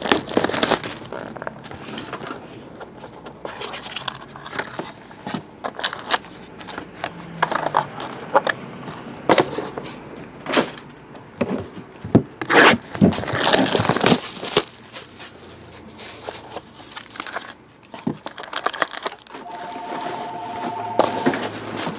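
Panini Court Kings trading card box being unwrapped and opened: packaging and foil packs crinkling, tearing and scraping in a run of short, uneven bursts. Near the end a phone rings briefly with a two-tone trill.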